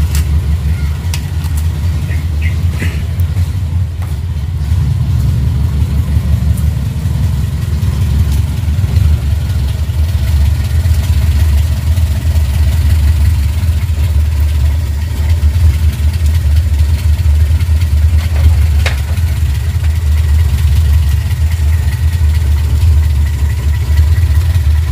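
Mitsubishi Colt T120's engine running at idle, a little louder from about five seconds in. The engine has just been put back together after its cylinder head was taken off to fix overheating.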